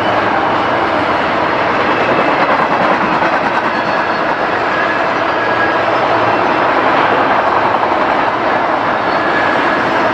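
BNSF freight train passing close by: a steady loud rolling rush of steel wheels on rail.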